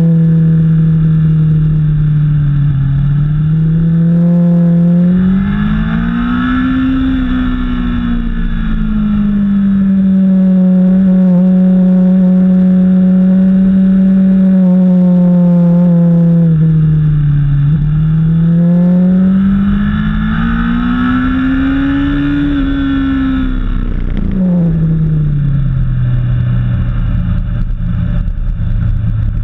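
Motorcycle engine heard from its own onboard camera, with no break. The pitch climbs, holds steady for several seconds, dips, climbs again and then falls away near the end as engine speed rises and drops around the track.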